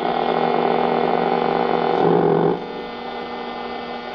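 GoldStar T-609 AM transistor radio being tuned between stations: a steady hum with several held tones over hiss from its speaker, dropping in level about two and a half seconds in.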